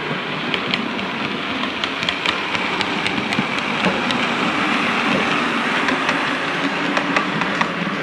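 Model railway train, a green multiple unit, running past on the layout track: a steady rolling hum with light, irregular clicking from the wheels on the rails.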